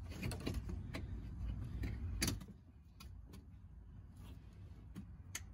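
Fuel pump wiring-harness connector being pushed into its socket on the fuel tank, with rustling handling noise, then snapping home with a sharp click about two seconds in; a few fainter ticks follow.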